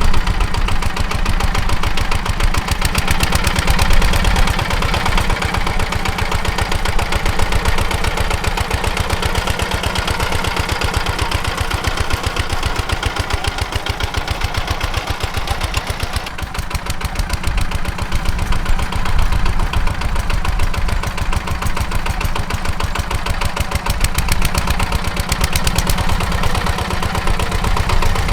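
Zubr walk-behind tractor's engine running steadily under load while its rotary tiller works the soil, with a short dip in level about halfway through.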